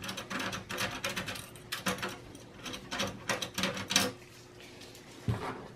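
Pliers turning the screws that hold a VGA port in a desktop PC's metal back panel: rapid, irregular metallic clicking and scraping that stops about four seconds in.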